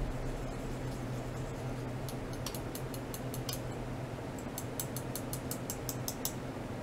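A run of sharp, high ticks over a steady low electrical hum: irregular from about two seconds in, then about six a second from about four and a half seconds, stopping shortly before the end.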